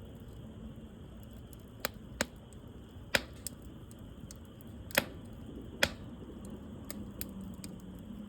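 Wood fire crackling: sharp pops and snaps at irregular intervals, about half a dozen loud ones and several fainter ticks, over a low steady hiss.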